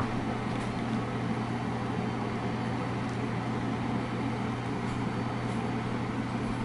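Steady mechanical hum of a running kitchen fan, with a constant low drone and an even whirring noise above it.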